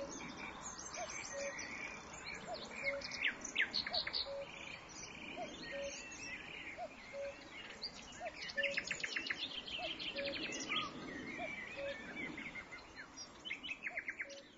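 Outdoor ambience of several birds chirping and trilling, with one short low note repeating at a steady pace.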